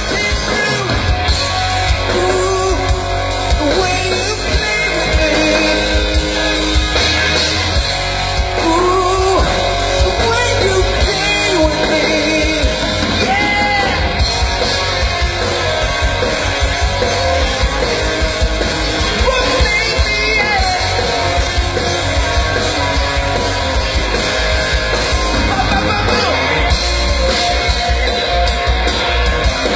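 Live rock band playing at full volume, with electric guitar over a steady low-end rhythm, and a male lead singer's voice coming in and out over it.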